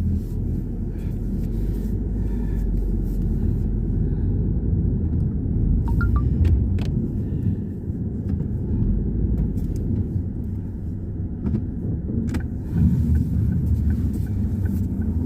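Car being driven slowly, heard from inside the cabin: a steady low rumble of engine and tyres, with a few light clicks.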